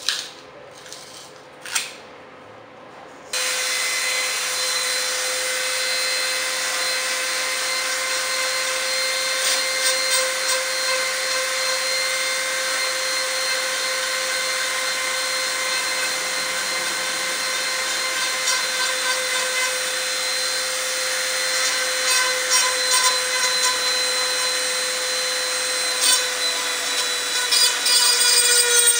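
Handheld rotary tool with a small burr bit running at a steady high whine and grinding the steel of a machete blade just above its brass ferrule. It starts a few seconds in, after two short sharp snaps of tape being handled, and the grinding grows rougher and more uneven near the end.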